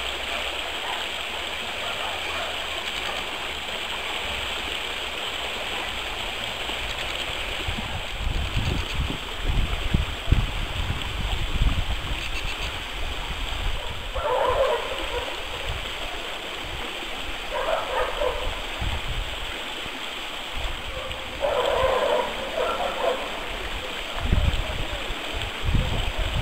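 Shallow, partly frozen stream running steadily over its bed, with intermittent low rumbles from about eight seconds in. Three short calls or voices come through briefly in the second half.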